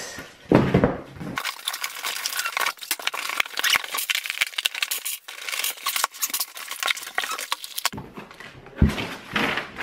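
A cardboard shipping box being opened by hand: dense crackling and scraping of cardboard flaps and packing, with a thump about half a second in and another near the end.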